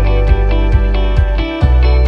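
Background music: guitar over a steady beat of about two strokes a second.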